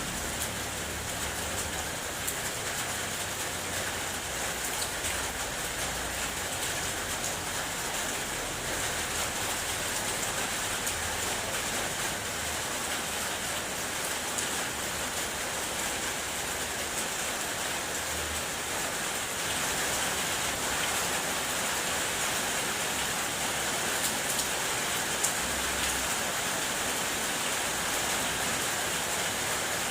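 Steady rain, raindrops tapping on a car's body heard from inside the car, growing slightly louder about two-thirds of the way through.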